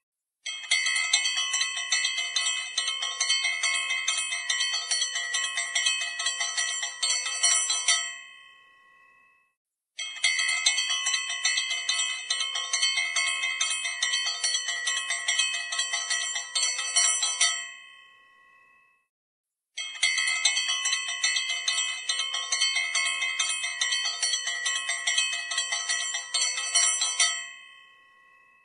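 A brass puja bell rung rapidly and continuously in three stretches of about eight seconds each, every stretch dying away into a short silence before the ringing starts again.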